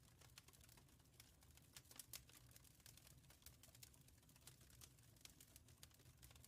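Wood fire crackling faintly: many small, irregular pops and snaps over a low, steady rumble.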